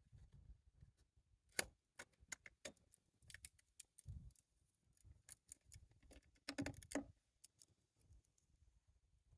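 Scattered light clicks and taps at a low level, with a short louder clatter about six and a half seconds in.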